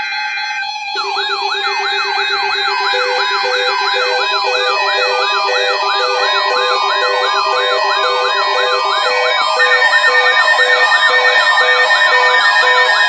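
Several electronic siren and alert tones layered together. A yelping siren sweeps up and down about three times a second over held steady tones and a beep pulsing about once a second, and the whole grows louder about ten seconds in.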